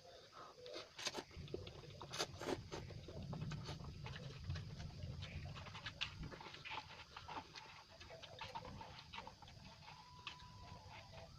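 A person eating instant cup noodles close to the microphone: chewing and mouth sounds with many scattered sharp clicks and smacks.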